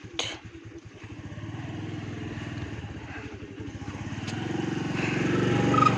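A motor scooter's small engine running close by, growing steadily louder over the last few seconds. There are two short knocks at the very start.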